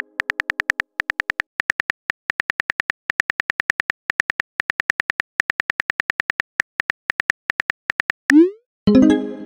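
Phone keyboard typing clicks, rapid and even at about seven a second with brief pauses, as a text message is typed out. Near the end comes a quick rising swoop, then a short pitched chime that fades.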